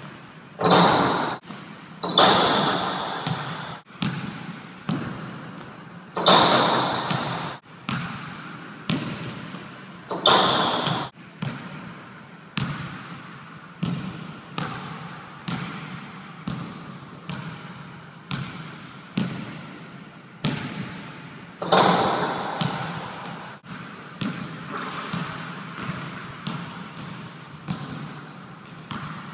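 Basketball bouncing on a gym floor roughly once a second, each bounce echoing around the large hall, with a few much louder crashes among them.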